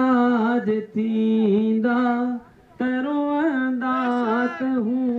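A man singing a Sindhi song into a microphone, holding long notes with ornamented bends and wavers. He breaks off briefly about a second in and again about halfway through.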